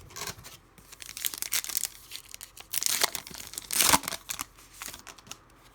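Foil trading-card pack wrapper crinkling as it is torn open, a run of crackles with the loudest about four seconds in.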